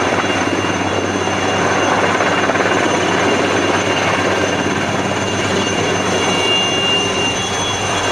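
Helicopter hovering close by, a steady rotor noise with a thin high whine over it.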